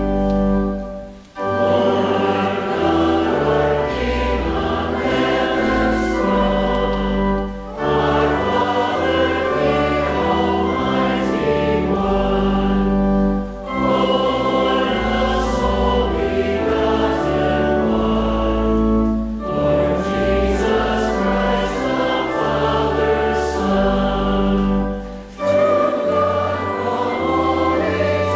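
Church congregation singing a hymn with organ accompaniment, in phrases about six seconds long with short breaks between them.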